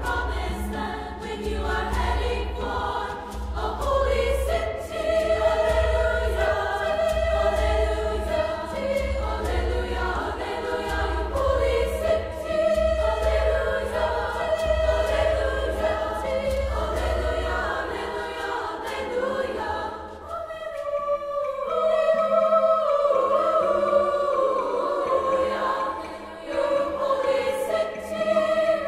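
Women's chorus singing in several parts in a cathedral's resonant acoustic. A low drum beats about once a second beneath the voices and stops about two-thirds of the way through, leaving the choir singing on alone.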